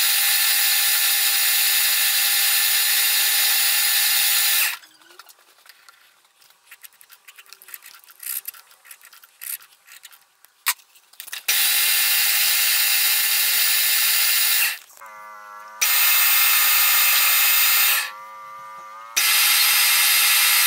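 Small metal lathe running steadily with a gear whine while turning a brass part. It stops about five seconds in, and a few seconds of light metallic clicks and taps follow as the part is handled in the chuck. The lathe then starts again, dropping off briefly twice before running on.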